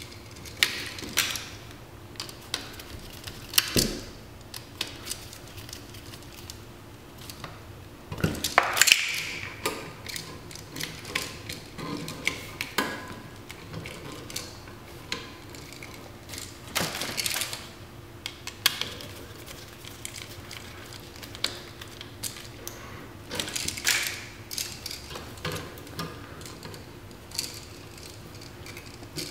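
Irregular small metal clicks and scrapes from wiring a new electrical outlet: stiff copper wires being hooked onto the receptacle's terminal screws and tightened with a screwdriver. A louder cluster of clicks comes about eight to nine seconds in.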